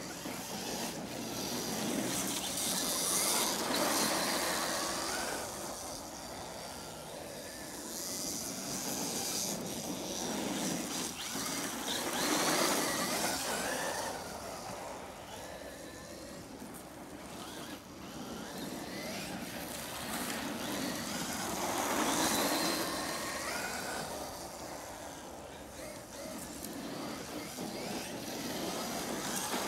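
Brushless electric Traxxas RC truck running laps on sandy dirt, its motor whine rising and falling and its tyres scrabbling as it passes close by about every four to five seconds.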